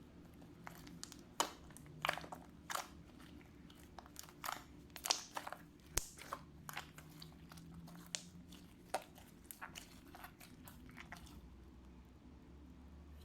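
Slime being squished and poked by hand, giving irregular sticky pops and crackles that die away about eleven seconds in.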